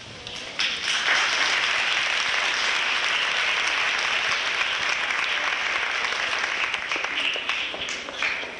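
An audience applauding: clapping starts about half a second in, holds steady, and dies away near the end.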